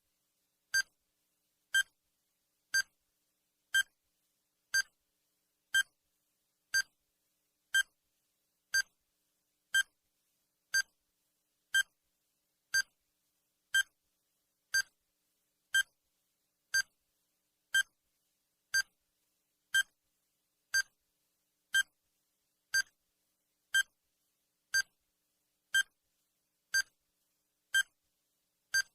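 Countdown timer sound effect: a short electronic beep once every second, evenly spaced, with silence between the beeps.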